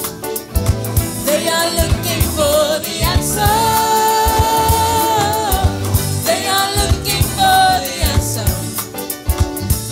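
Gospel worship song: a singer holds a long note over a band with a steady drum beat.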